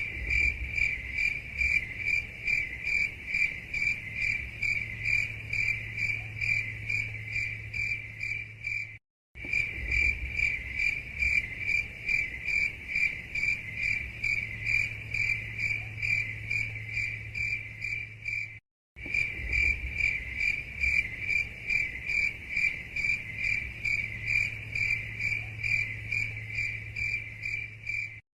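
Cricket chirping in a steady, even rhythm of high-pitched pulses, a few chirps a second. The sound cuts out completely for a moment twice, where the looped track restarts.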